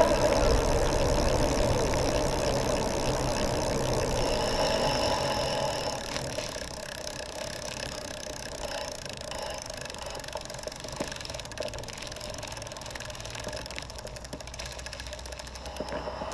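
Geared hub motor of a 36 V 350 W electric bicycle humming with a whine of several tones while riding, fading out about six seconds in as it gets quieter and leaving a quieter running noise. The owner can't tell whether the hum is the planetary reduction gear or the motor itself resonating.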